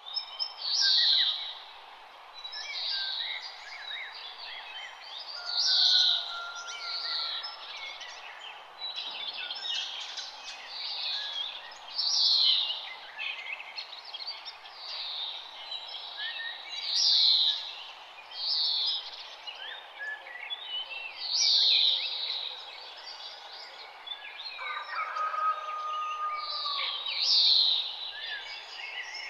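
Several songbirds singing and chirping in a dawn chorus. One bird's loud song phrase repeats about every five seconds over the other birds' chirps, with a steady background hiss throughout.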